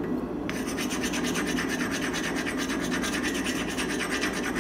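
Rapid back-and-forth scraping of an abrasive over hardened steel, which pauses briefly about half a second in and then runs on steadily. The abrasive is cleaning the scale off the surface so the temper colours can be seen.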